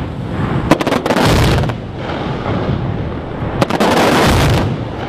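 Fireworks going off in two volleys, about a second in and again about three and a half seconds in. Each volley is a few sharp cracks followed by about a second of dense bursting and crackling.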